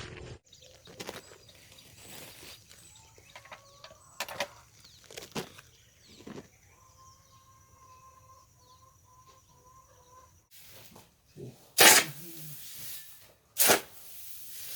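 Chickens in a poultry house: faint scattered scratching clicks and a few short calls, then several loud, short squawk-like bursts in the last few seconds.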